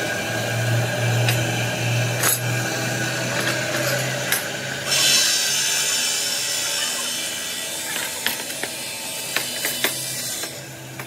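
Stone-cutting machinery running with a steady low hum, with scattered knocks and clanks as cut granite slabs are handled on a hand trolley. About five seconds in, a loud hiss starts and runs for several seconds before dropping away near the end.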